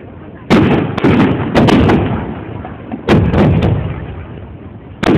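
Aerial firework shells bursting overhead: a run of sharp bangs, each dying away in a low rumble, coming in clusters about a second in and about three seconds in, with one more near the end.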